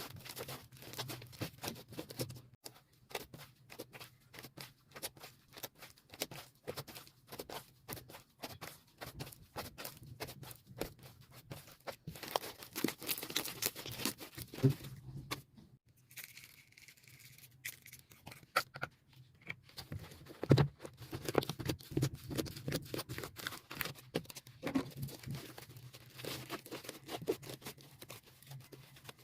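Soft white slime being squeezed, stretched and poked, giving a dense run of small wet clicks and pops, sped up to double speed. There is a short lull just past the middle.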